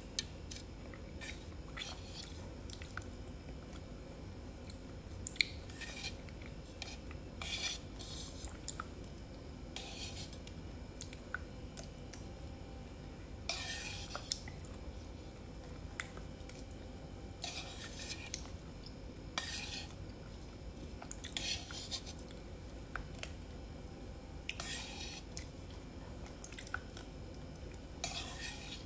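A spoon clicking and scraping against a bowl many times, with chewing, as mushroom soup is eaten fast, and a short noisy burst every couple of seconds.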